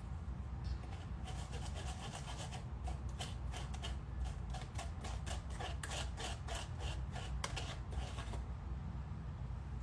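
Repeated scraping strokes, about two or three a second, as tiger nut pulp is worked against a fine mesh strainer to press out the milk. The strokes ease off near the end.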